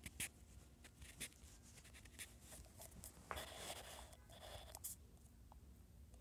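Faint finger taps and a scratchy rubbing of a finger drawing strokes across a phone's touchscreen: a scatter of light clicks, then a longer rub about three seconds in.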